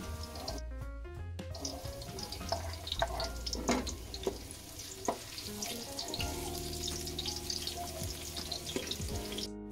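Garlic and sliced onion sizzling in hot oil in a metal wok, with a few knocks and scrapes of a plastic spatula against the pan while stirring. Background music plays throughout.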